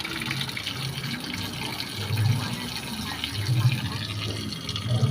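Water pouring and splashing steadily from a running submersible pump's outlet.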